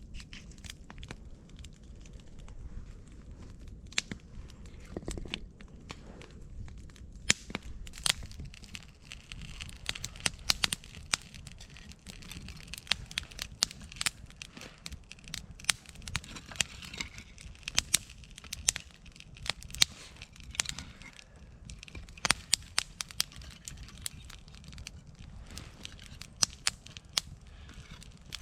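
Wood campfire crackling, with irregular sharp pops and snaps, several a second at times, over a low steady rumble of the flames.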